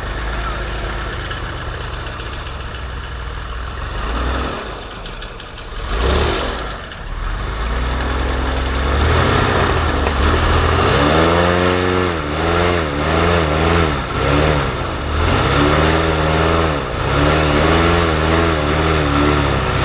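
Airboat engines running; one passes by about six seconds in. From about nine seconds on, an airboat engine is revved up and down over and over, about once a second.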